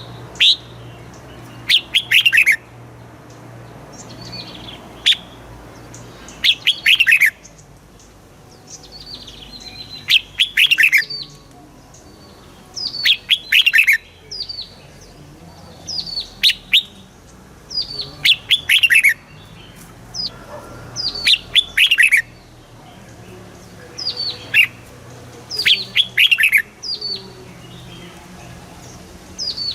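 Red-whiskered bulbul singing: short phrases of quick, downward-sliding whistled notes, repeated about every two to three seconds.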